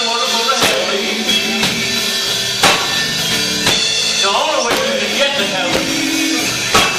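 Live gospel band music: a drum kit keeps a steady beat under sustained instrument chords, with singing voices.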